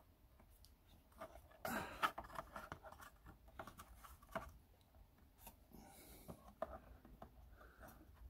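Faint scraping, rubbing and light clicks of thin laser-cut wooden panels being handled and pressed together by hand as the back of a book nook is slotted onto its tabs.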